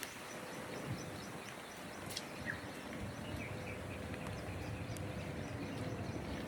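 Steady hiss of light rain and breeze outdoors, with small birds chirping: a quick run of high repeated chirps in the first couple of seconds and a few short chirps a little after three seconds.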